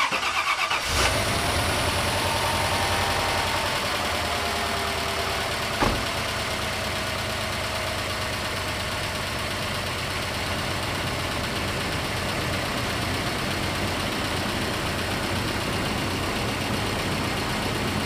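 1995 Chevy Silverado pickup's engine just started and idling steadily, with a tick that the owner has been told comes from the lifters. There is one short knock about six seconds in.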